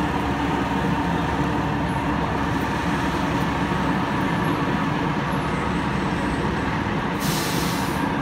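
Diesel engine of an FDNY fire engine idling steadily in the firehouse bay. Near the end comes a loud burst of air hiss, lasting under a second, as the air brake is set.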